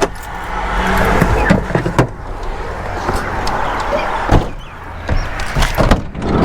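Van engine running low while the van is being parked, with a few sharp clicks and knocks over it.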